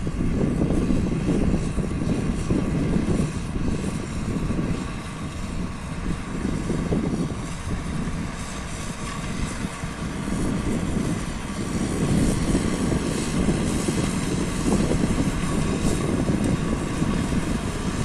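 Hattat 398 tractor's diesel engine running steadily under load while pulling a plough through fallow stubble.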